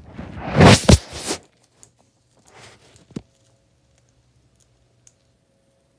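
A blanket rustling loudly for about the first second and a half as it is moved off the phone, then near quiet with a few faint clicks and one sharper click about three seconds in.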